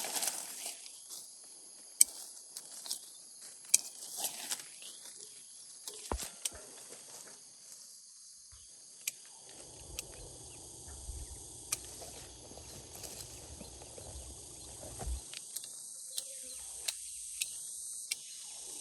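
Outdoor ambience: a steady high hiss with scattered sharp clicks and snaps, and a low rumble through the middle.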